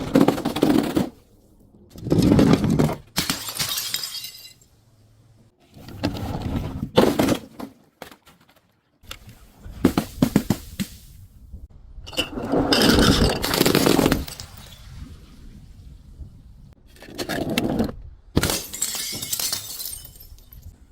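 Glass bottles being crushed and breaking, in about seven separate bursts of crunching and crackling with short pauses between them.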